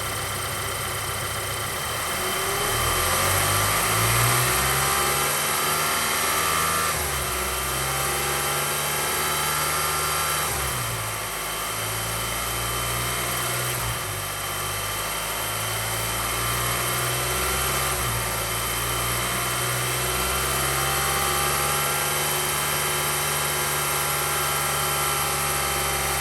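Volkswagen 2.0 TSI (EA888) turbocharged four-cylinder engine, warmed up, revved from idle about two seconds in. It is held at raised speed, sagging and climbing again a few times, and drops back to idle right at the end. The revs are held up so its oil pressure can be read on a gauge.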